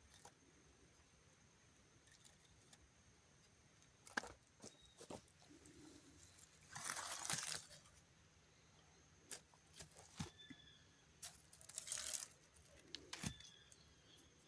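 Quiet scene with scattered sharp clicks and knocks and two brief rustling scrapes, about 7 and 12 seconds in, with a few faint bird chirps.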